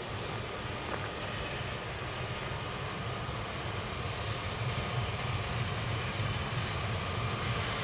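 A train approaching, its low rumble growing steadily louder.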